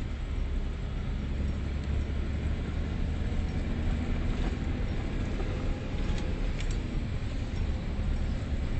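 Scania 124 470 truck's six-cylinder diesel heard from inside the cab, pulling steadily at about 1,400 rpm while driving, with a constant low hum and road and cab noise, and a few light rattles near the end.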